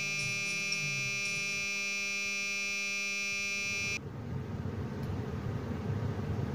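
Steady electronic buzz from the Renault MediaNav head unit's audio, with a high whine over a low hum, which cuts off abruptly about four seconds in. A low, rumbling background noise follows.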